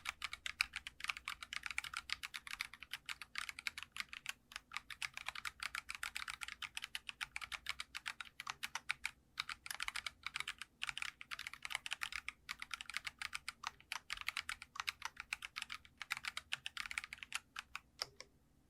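Fast, continuous typing on a Geekstar mechanical keyboard: light, crisp "dogak-dogak" key clacks with a few brief pauses, stopping just before the end.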